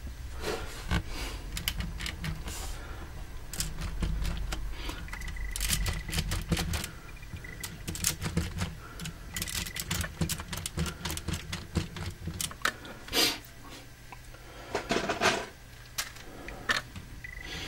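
Plastic LEGO Technic parts on an RC truck chassis clicking and rattling in quick irregular strokes, with a low electric motor hum that stops about seven seconds in and a few brief high whines.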